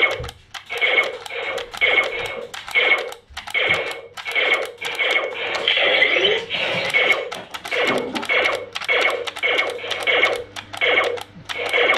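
Nerf Laser Ops Pro AlphaPoint laser blaster playing electronic sound effects through its small built-in speaker: short bursts repeating about three times a second.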